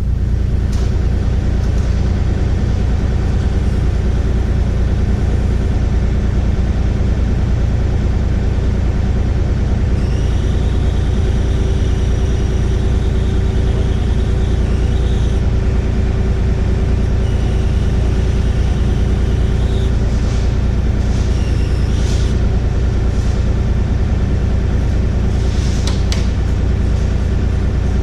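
Kubota KX040-4 excavator's diesel engine running steadily at a constant speed, with high-pitched squeals coming and going over it from about a third of the way in.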